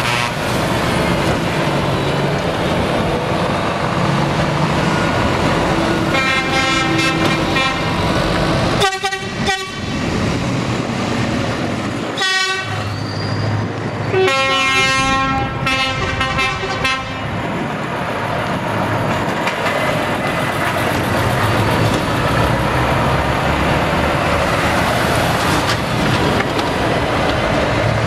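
Heavy truck tractor units driving out with their diesel engines running, and multi-tone truck horns blown several times in the middle, the last and longest blast lasting about three seconds.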